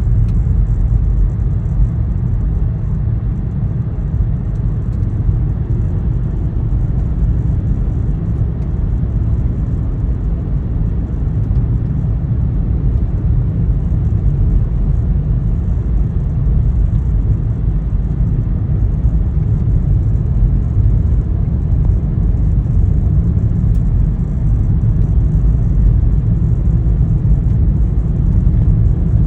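Front-wheel-drive car driving up a snowy road: a steady low rumble of engine and tyres.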